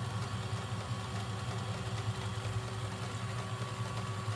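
LEGO Technic electric motor running steadily, driving a gear train that spins a rubber-tyred wheel at high speed: a low hum with a faint steady high tone over it.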